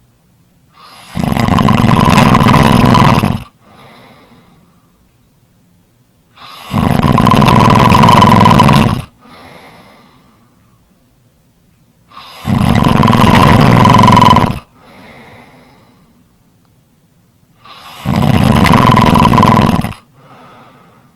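Loud, rhythmic snoring: four long snores, each about two seconds, coming roughly every five and a half seconds, each followed by a short, much fainter sound.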